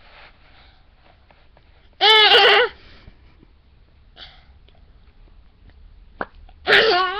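A toddler's loud, high-pitched squealing laugh, in two short bursts: one about two seconds in and another near the end, with faint breathing between.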